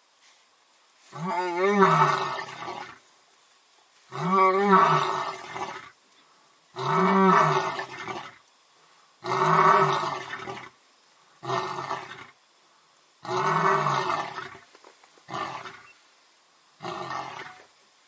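A series of about eight animal roars, one every two seconds or so, each rising then falling in pitch; the later ones are shorter.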